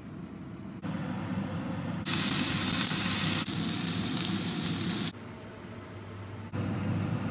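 Bone-in rib eye steak sizzling loudly in a cast iron skillet, starting abruptly about two seconds in and cutting off suddenly about three seconds later. A low steady hum runs underneath.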